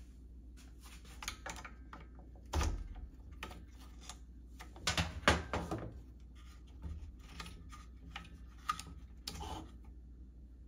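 Small clicks, taps and scrapes of a flat screwdriver prying the plastic-encased carbon brush out of a circular saw's motor housing, with a few louder knocks about two and a half, five and nine seconds in.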